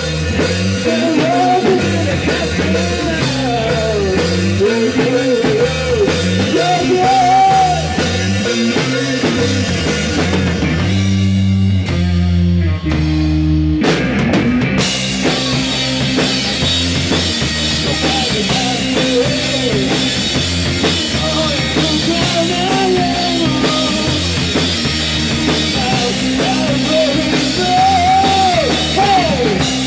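Live rock band with electric guitar, drum kit and a male singer. About 11 seconds in, the drums and cymbals drop out for a few seconds, leaving a few low held notes. The full band crashes back in about 14 seconds in.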